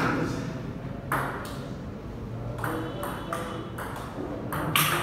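Table tennis rally: the ball clicking off the paddles and bouncing on the table, a string of sharp pings about one to two a second.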